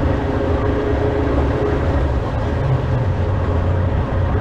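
Small fishing boat's engine running steadily while trolling: a constant low rumble, with water rushing along the hull.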